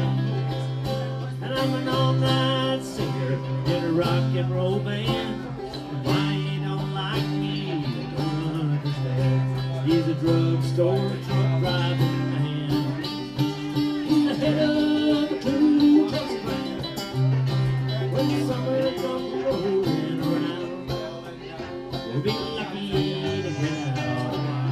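Live acoustic blues band: a banjo and guitars, among them a cigar box guitar, play together over a steady low note, with a man singing.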